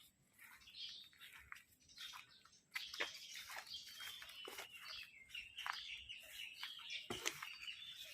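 Small birds chirping, starting about three seconds in as a rapid run of short, sharp high notes that keeps going.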